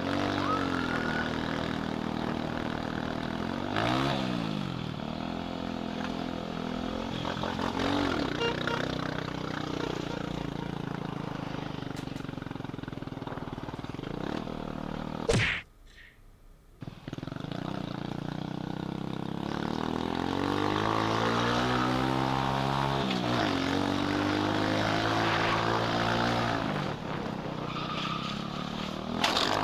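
Small motorcycle engine heard from the rider's helmet camera, revving up and falling off again and again as it runs through the gears in traffic. The sound drops out for about a second midway, and a sudden loud noise comes near the end.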